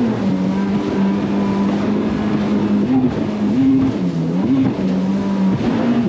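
Jet ski engine running at speed, a steady drone whose pitch dips and comes back a few times partway through. The rush of water and wind runs underneath.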